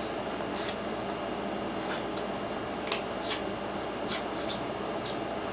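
Close-miked crab eating: about eight short, sharp clicks and snaps, unevenly spaced, over a steady background hiss.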